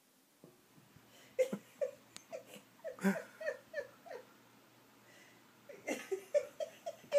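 A person laughing in quick short giggles, in two runs with a pause of about a second and a half between them.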